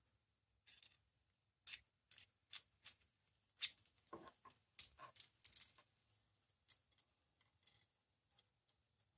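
Faint, irregular metallic clicks and short scrapes of a small hand tool working in the lantern burner's wick-raiser hole, widening it so the wick gear stops binding. The loudest scrapes come about four to six seconds in.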